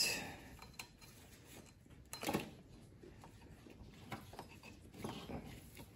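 Faint handling noises as gloved hands work a loosened rubber timing belt off the toothed cam pulleys of a Toyota 3S-GTE engine. There is one short rasping scrape about two seconds in and a few light clicks after it.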